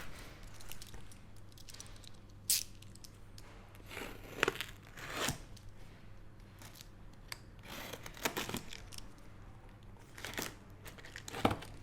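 Cardboard box being opened by hand: a string of short tearing and scraping sounds, several seconds apart.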